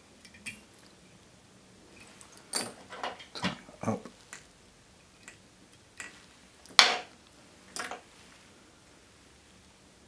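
Small metal fly-tying tools handled at the vise: a run of short clicks and scrapes around the whip-finish tool, then a sharper snip about seven seconds in as scissors cut the tying thread at the hook eye, and one more click soon after.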